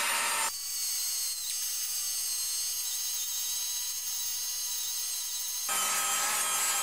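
Air-powered grinder biting into the steel sway bar to strip it for paint, a harsh high grinding with a steady high whine from the tool. The grinding eases about half a second in, leaving mostly the whine, and comes back loud near the end.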